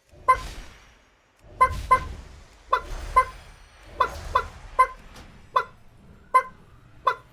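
A chicken clucking: about a dozen short, clipped clucks at an uneven pace, some singly and some in quick pairs.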